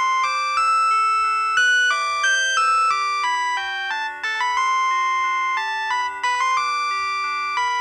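LG KP105 mobile phone playing one of its built-in polyphonic ringtones: a synthesized melody of stepped, held notes over a repeating lower accompaniment.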